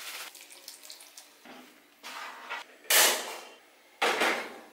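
Cooking sounds at a frying pan: dry grains poured from a bag hiss into the pan, then several short bursts of hissing and rattling noise, the loudest about three seconds in and another about four seconds in.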